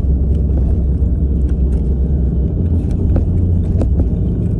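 Steady low rumble of a car heard from inside the cabin, with a few faint clicks over it.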